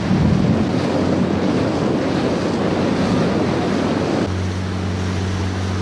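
Wind buffeting the microphone over sloshing water, filmed from a boat on the sea. About four seconds in, the wind eases and a steady low motor hum comes up.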